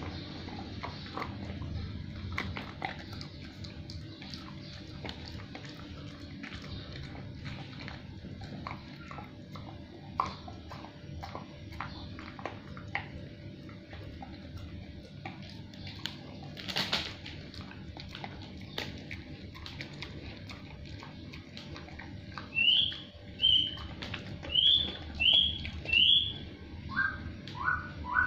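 A Samoyed chewing a snack: irregular crunching and clicking, with one louder crack about 17 seconds in. Near the end comes a run of short rising chirps, repeated about every half second.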